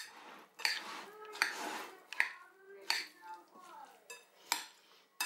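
A metal spoon stirring an oil-dressed salad of grated carrot, apple, cheese and egg in a china bowl: a soft wet rustle of shreds, with the spoon clinking against the bowl several times.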